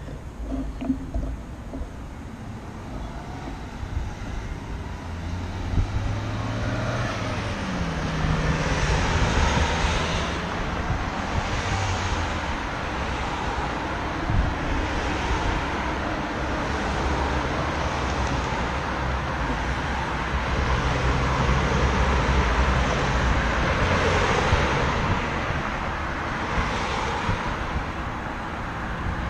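Wind rushing over a GoPro's microphone while cycling, growing louder over the first several seconds, with road traffic going by.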